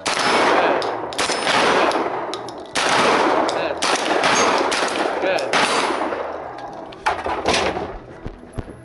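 A long gun fired rapidly, about ten shots in uneven groups, each followed by a long echo. There is a short lull before the last two shots near the end.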